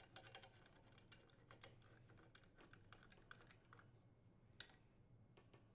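Faint, irregular light clicks and taps of a hand nut driver tightening a screw into the engine's sheet-metal cylinder head shield, with one sharper click about four and a half seconds in.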